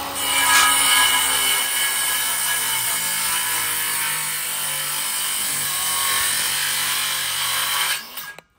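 Ridgid circular saw cutting through a rough-cut 2x6 board: a steady motor whine with the rasp of the blade in the wood, stopping abruptly near the end as the cut finishes.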